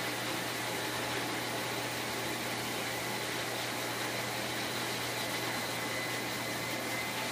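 Pet grooming blower dryer running steadily, blowing air through its hose into a dog's coat: an even rush of air with a thin steady whine over it.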